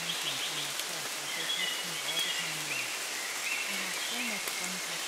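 Steady rain noise, with a faint, low-pitched voice speaking underneath it.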